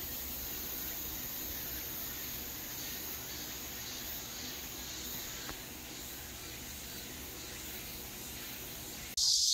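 A steady chorus of insects in the surrounding trees, fairly faint. Near the end it cuts suddenly to a much louder, higher insect drone.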